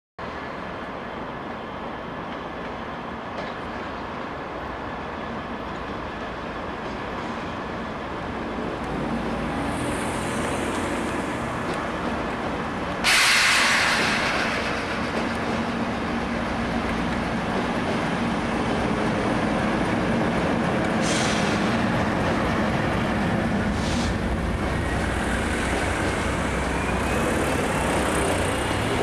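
Diesel-hauled freight train of empty container flat wagons passing: steady rumble of the locomotive's engine and rolling wagons, getting louder, with a sudden loud rush about halfway through and a couple of knocks as the wagons go by.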